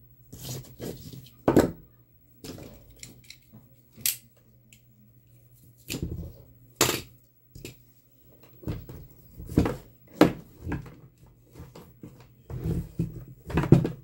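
Irregular clicks, taps and knocks of tools and small parts being handled while an electric fan motor is worked on at a bench, over a faint steady low hum.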